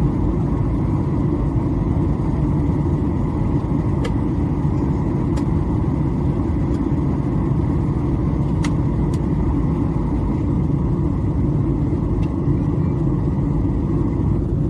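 Steady cabin roar of a Boeing 737-800 on descent, heard from inside the cabin: its CFM56-7B engines and the airflow over the fuselage, with a faint steady whine and a few light ticks.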